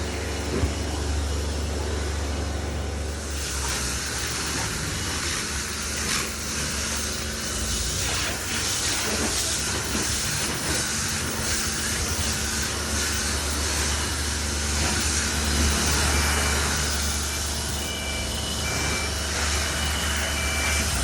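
A vehicle on the move: a steady low drone with a rushing wind and road noise that grows louder about three seconds in. A series of short, evenly spaced beeps comes in near the end.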